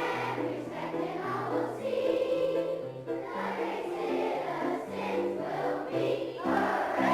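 A choir singing a song with instrumental accompaniment, the notes moving in steady steps.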